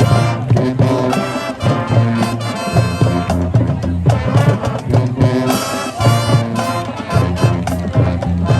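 Marching band playing: brass (trumpets and trombones) over a steady drumline beat.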